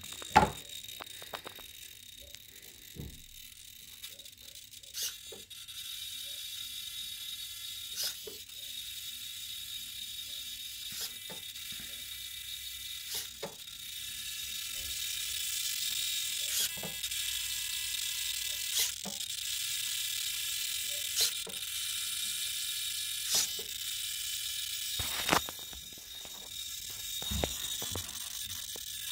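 Digital swashplate servos of an RC helicopter under a Spirit flybarless unit, buzzing with a high-pitched whine as they hold and move the swashplate, with sharp clicks every second or two. The hum grows louder about halfway through. The owner presents this as the servos' normal operation.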